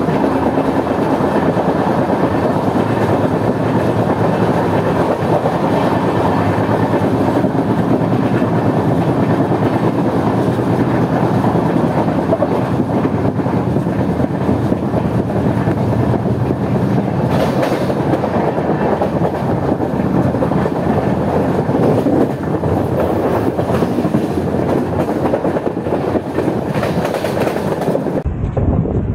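Cholan Superfast Express passenger train running along the track: a loud, steady rumble and clatter of coach wheels on the rails. Near the end the sound changes abruptly to a duller, lower rumble.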